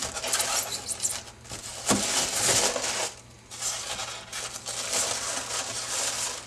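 Packaging rustling and crinkling in three stretches as model parts are unpacked by hand, with a light knock at the start and another about two seconds in.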